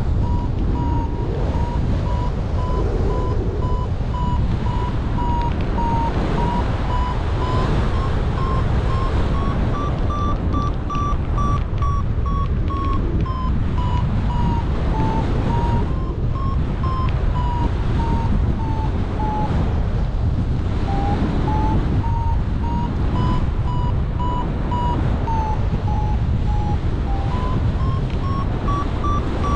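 Paragliding variometer beeping in quick succession, its pitch slowly rising and falling with the strength of the lift, which signals the glider climbing in a thermal. The beeps break off for a moment about two-thirds through. Steady airflow rushes over the microphone throughout.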